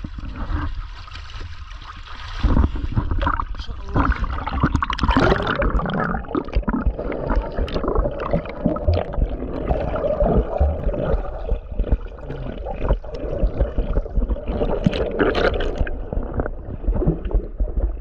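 Sea water sloshing and gurgling around a camera at the surface, turning into a muffled, bubbling underwater rush with small knocks once the camera is submerged; louder from about two and a half seconds in.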